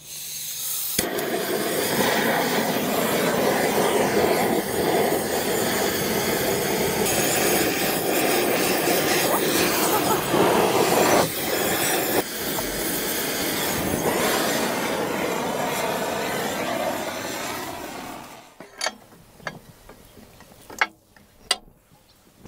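Two handheld butane gas torches burning with a loud, steady hiss as they are aimed into a charcoal chimney starter to light the briquettes; the flames build up over the first second and cut off after about eighteen seconds. A few sharp metal clicks follow near the end.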